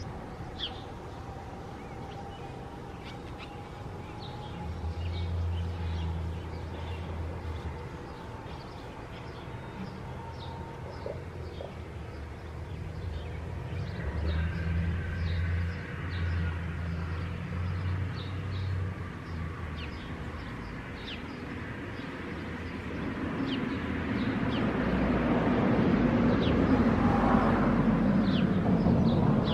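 Birds chirping outdoors, with a low hum that comes and goes. Over the last several seconds a louder, broad rushing sound builds up.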